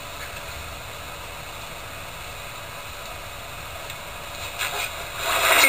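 Steady hiss of background recording noise in a quiet room, with rustling sounds starting near the end.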